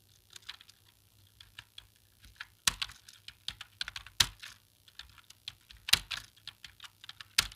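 Computer keyboard being typed on in a quick, irregular run of key clicks, with a few noticeably louder keystrokes standing out.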